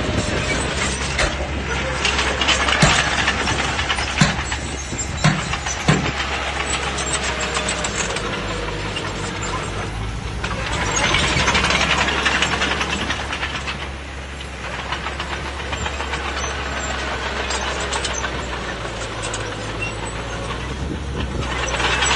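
Bulldozer's diesel engine running steadily, with a few sharp metallic knocks in the first several seconds and the engine noise swelling louder around the middle and again near the end.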